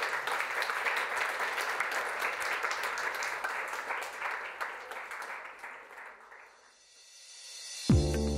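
Audience applauding, dense clapping that fades away about seven seconds in. Near the end, electronic music with a steady beat starts.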